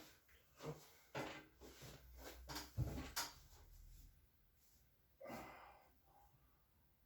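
Hands-on chiropractic treatment: handling and rustling against the patient's body and the table, with a run of short knocks and sharp clicks, the loudest about three seconds in. A single breathy exhale follows a little past five seconds.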